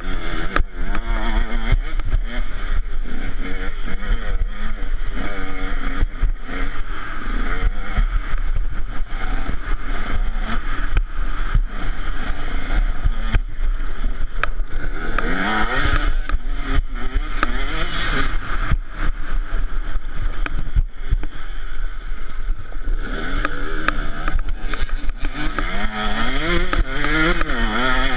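KTM 150 SX single-cylinder two-stroke dirt bike engine revving hard at speed, its pitch rising and falling again and again as the throttle opens and shuts and it goes through the gears. Wind rush on the on-board microphone and knocks from the rough trail sound under it.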